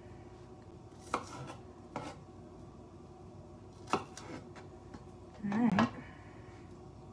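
Kitchen knife cutting an onion into wedges on a cutting board, with a few sharp knocks of the blade meeting the board about one, two and four seconds in. A woman gives a brief murmur near the end.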